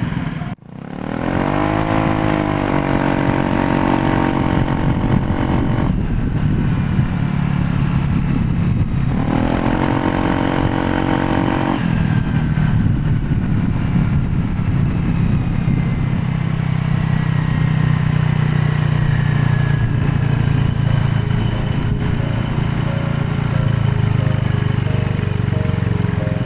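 Honda PCX 125 scooter being ridden. Its engine and drive note rise and then level off twice as it pulls away, over a steady low rumble of running and wind. Later a faint whine falls slowly in pitch as the scooter rolls and slows.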